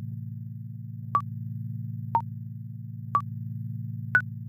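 Countdown-timer sound effect: a short electronic beep once a second, four times, the last one a little higher in pitch, over a steady low electronic drone.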